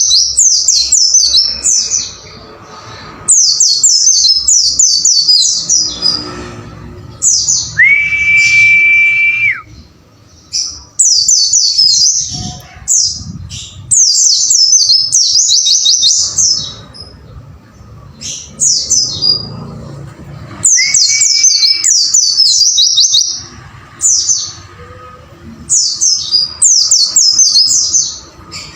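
Pleci (white-eye) song: rapid, high chirping phrases in bursts of a second or two with short gaps. Twice, about 8 s in and again near 21 s, a single long steady whistled note is held for a second or more.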